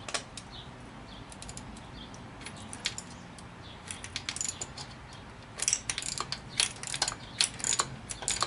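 Ratchet wrench clicking as bolts are worked loose on the engine's cover plate: scattered clicks at first, then quicker runs of clicks from about five seconds in.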